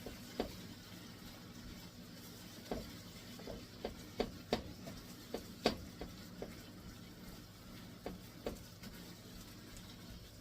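Ground beef sizzling faintly as it browns in a pan, with a utensil tapping and scraping against the pan now and then at irregular intervals.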